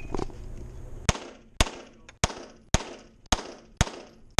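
Competition pistol (Open division, minor power factor) firing a quick string of about seven shots, roughly half a second apart, starting about a second in. Each shot rings with echo off the walls of an indoor range.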